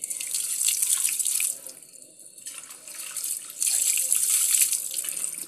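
Water poured from a plastic cup over a dog's coat, splashing in two bouts: one at the start and a longer one from about halfway to the end.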